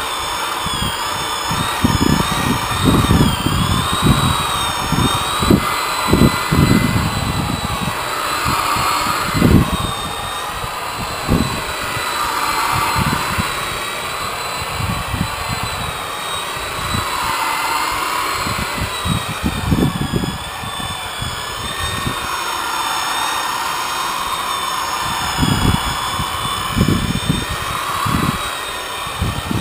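Corded rotary polisher with a foam pad running against a fibreglass boat hull, a steady whine that wavers in pitch, with irregular low thumps.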